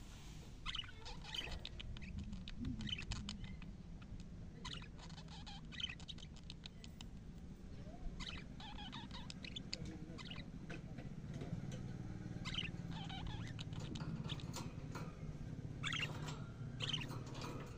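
Budgerigars chattering: quick, short, high chirps and squeaks in scattered clusters, over a low steady hum.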